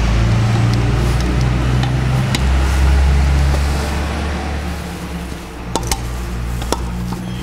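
A steady low mechanical hum, easing off about halfway, with a few sharp metallic clicks near the end as pliers grip and slip on a broken bolt stub seized in an aluminium cylinder head.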